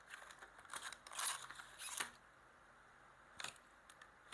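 Plastic blister packaging of a Hot Wheels premium die-cast car being pried and torn open by hand: scattered crinkles and sharp clicks, busiest about a second in, then a pause and another click near the end. The pack is a stubborn one to open.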